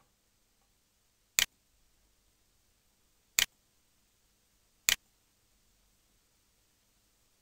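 Three sharp computer mouse clicks, spaced about one and a half to two seconds apart, with only faint room tone between them.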